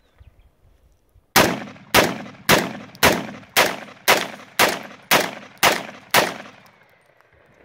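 300 Blackout AR-15 pistol fired ten times in steady semi-automatic succession, about two shots a second, each shot followed by a fading echo.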